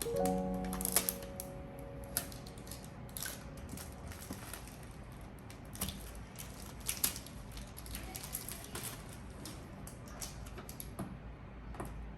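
Irregular clicks, taps and light rustles of objects being handled, typical of unpacking an appliance, after a short musical chord that ends about a second in.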